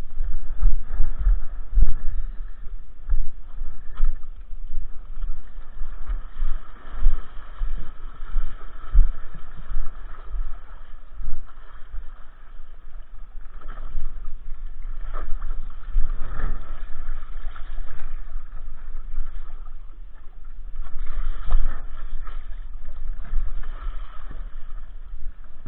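Wind buffeting the microphone in strong wind, in gusty low rumbles, over water rushing and splashing against a windsurf board as it sails across the lake.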